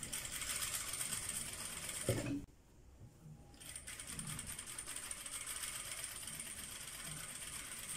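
Jack F4 industrial straight-stitch sewing machine, driven by its built-in servo motor, stitching at its minimum programmed speed: a steady, even clatter of the needle bar, going very slowly. It stops for about a second after a short knock a little past two seconds in, then starts stitching again.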